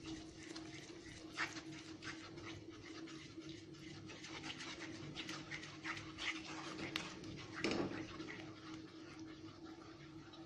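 Faint scraping and ticking of a wooden spatula stirring gram flour batter into hot sugar syrup in a non-stick kadai, over a steady low hum, with one short louder sound about three-quarters through.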